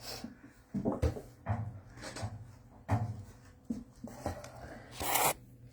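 Microphone being handled and positioned, with rubbing and knocking on the mic and a brief loud scrape about five seconds in.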